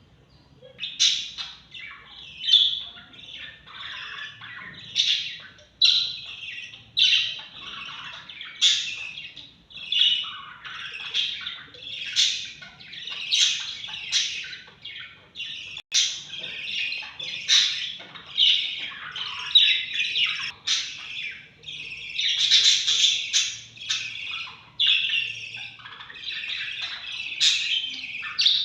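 Baby lovebirds giving short, harsh squawking chirps over and over, about one or two calls a second without a break.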